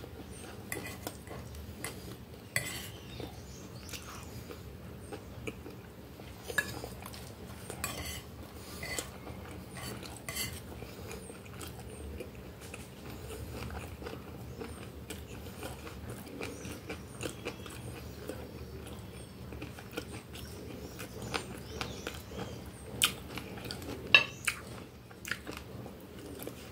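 Close-up eating sounds: chewing, with a metal fork clicking and scraping on a glass plate now and then. The sharpest clicks come a few seconds before the end.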